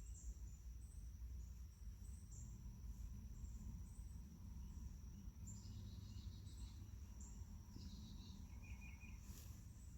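Insects trilling steadily in one high, thin tone, with a few short bird chirps scattered through, over a faint low rumble.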